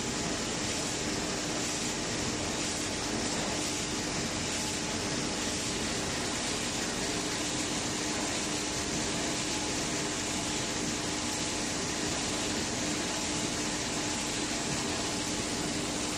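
Sheet-to-sheet cardboard laminating machine running: a steady mechanical whir with a constant hum at one pitch.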